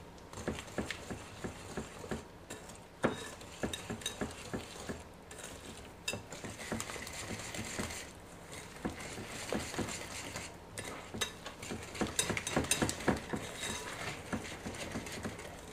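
Wire whisk beating eggs into sugar, flour and cornstarch in a glass bowl: quick, irregular clicks of the wires against the glass.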